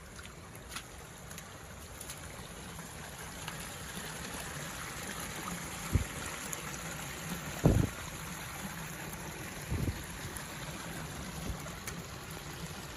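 Muddy water of a debris flow rushing steadily over rocks and mud, with a few short low thumps about halfway through.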